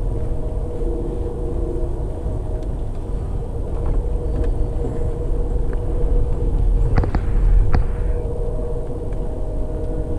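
Amtrak passenger train rolling along the track, heard from inside the car: a steady low rumble with a faint hum, and two sharp clicks a little after halfway.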